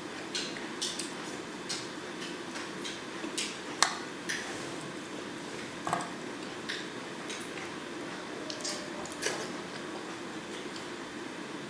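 Close-up eating sounds: wooden chopsticks tapping and clicking against the dish at irregular moments, the loudest about four seconds in, with soft chewing of sticky rice. A steady low hum runs underneath.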